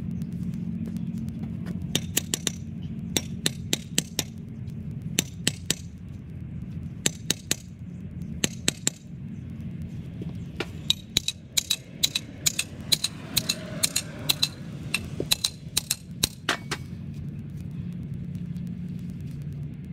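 Sharp metallic clicks and taps, mostly in quick pairs or threes, stopping a few seconds before the end, over a steady low hum.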